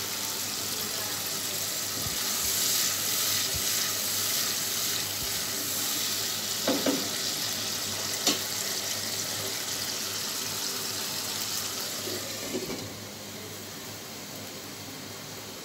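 Spice paste bubbling and sizzling in oil in an open nonstick wok as it is slow-fried towards the oil separating, with a few light clinks. About 13 seconds in the glass lid goes on and the sizzle becomes quieter and muffled.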